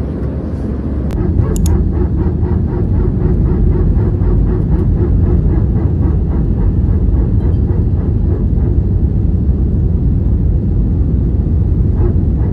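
Airliner cabin noise: the steady, loud low rumble of the jet engines and airflow heard from inside the passenger cabin.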